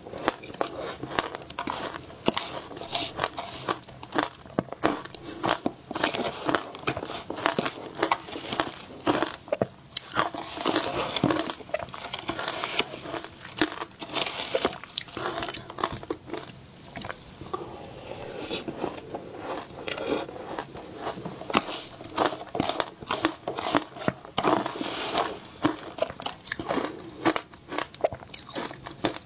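Close-miked crunching and chewing of shaved ice dusted with matcha powder, eaten by the spoonful: a dense, unbroken run of crisp crunches.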